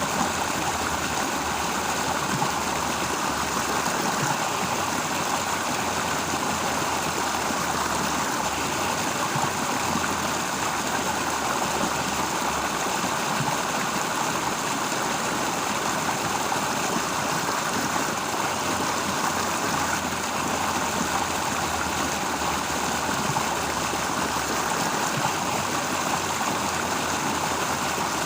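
Flowing stream water, a steady unbroken rushing.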